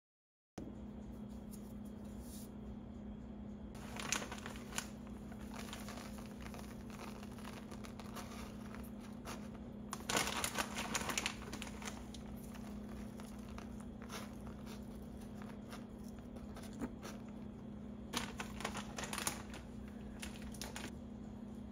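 Three bursts of crinkling and rustling, about four, ten and eighteen seconds in, over a steady low hum.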